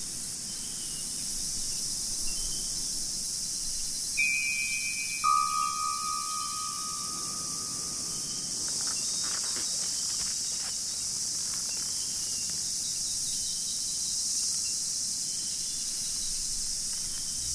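Steady high-pitched drone of an insect chorus in woodland. About four seconds in a held tone sounds, then a lower one about a second later, each lasting a couple of seconds.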